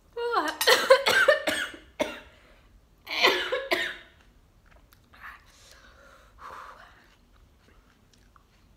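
A woman coughing hard in two bouts, the first right at the start and lasting about a second and a half, the second about three seconds in, followed by a few faint breaths. She is coughing on the raw onion she is eating.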